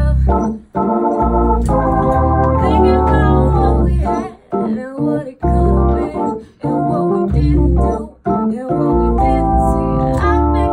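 A woman sings a soulful R&B line with a wavering vibrato over organ chords. The organ holds full chords over a strong bass, and the chords drop out briefly every couple of seconds.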